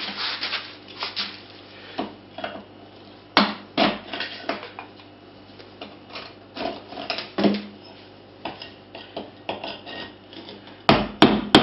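Hammer striking a chisel to chip old tile adhesive out of a concrete floor, irregular taps and scrapes with loose mortar chunks clattering, and a quick run of sharper, louder blows near the end.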